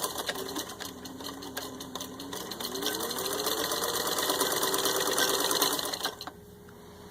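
Vintage 1950 Singer 15-91 sewing machine stitching through six layers of denim. It starts at a slow speed, speeds up about two and a half seconds in, runs fast and steady, then stops about six seconds in.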